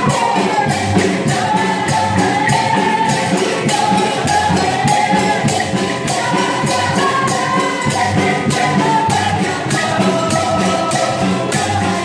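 Live worship music: a woman singing a melodic line into a microphone over electric guitar and a steady percussion beat.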